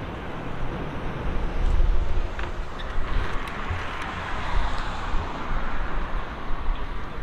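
Street traffic: a passing vehicle's road noise swells in the middle and fades away, over a steady low rumble.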